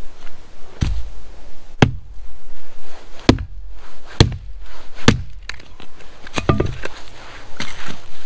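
Axe chopping and splitting wood: about seven sharp blows, roughly one a second, with two coming close together in the second half.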